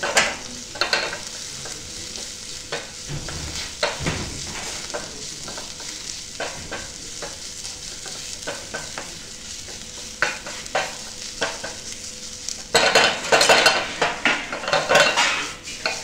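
Chopped spinach, garlic and shallots sizzling in a frying pan on a gas burner, with a wooden spoon scraping and knocking against the pan as it stirs. Near the end the sizzling and scraping get louder for a few seconds as the pan is tossed.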